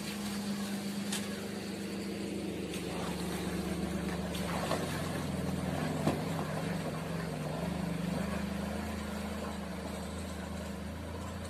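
A small hatchback car drives through a flooded road, its engine running and its tyres swishing through the standing water as it passes, loudest about midway, with one sharp knock just past the middle.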